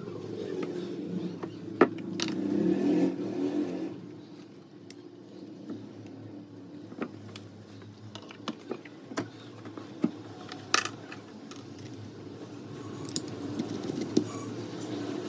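Small metal parts of a hammer drill clinking and tapping as it is worked on by hand, with a dozen or so separate sharp clicks and knocks over a steady low hum.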